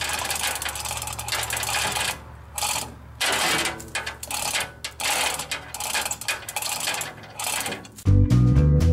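Ratchet mechanism worked in repeated short strokes, tightening the lifting rigging on a pickup bed. Upbeat music with drums and guitar comes in near the end.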